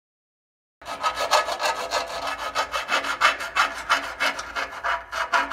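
Flat hand file rasping back and forth on the burred edge of a hole-sawed hole in a steel truck frame rail, quick even strokes about five a second, starting suddenly about a second in. It is deburring the hole so the new mount will bolt up flush.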